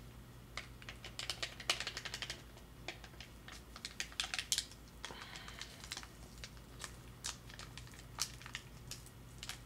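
Faint, irregular light clicks and taps, in quick clusters at first and sparser later, from eating ribs at a table: hands handling the food, plate and bones.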